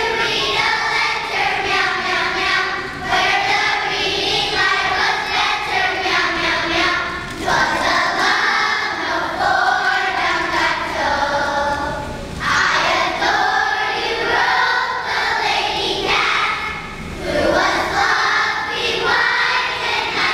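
Children's choir singing, in phrases of about four to five seconds with brief breaks between them.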